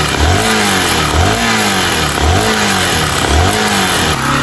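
Honda Bros 160 single-cylinder engine blipped on the throttle about once a second, four times, then dropping back to idle near the end. A metal-on-metal noise from the top end, which the mechanic takes for something come loose inside, perhaps a piston pin circlip.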